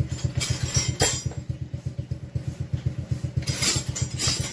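A small engine idling with a steady, rapid low thump, typical of a single-cylinder motorcycle engine running nearby, with a few brief metallic scrapes about a second in and near the end.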